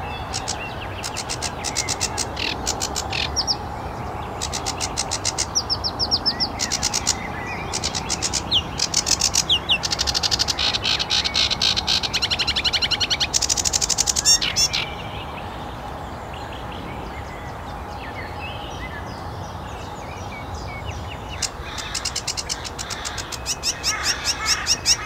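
Sedge warbler singing: long runs of fast repeated notes and trills. The song grows densest about ten to fifteen seconds in, breaks off for several seconds, and starts again near the end.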